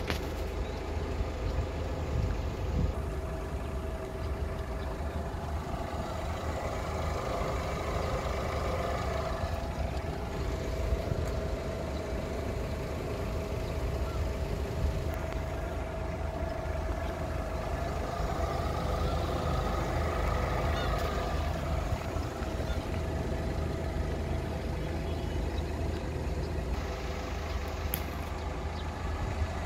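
A motor-vehicle engine running steadily, a constant hum over a low rumble, swelling twice.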